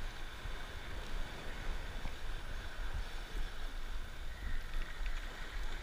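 Wind buffeting the microphone in a steady low rumble, over surf washing against rocky shoreline.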